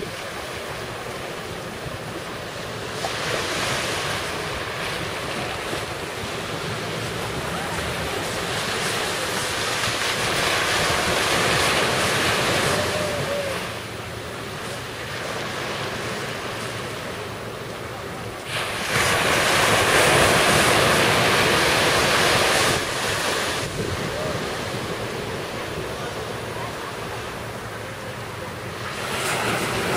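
Surf breaking and washing on a sandy shore, with wind buffeting the microphone. The wash swells louder and fades several times.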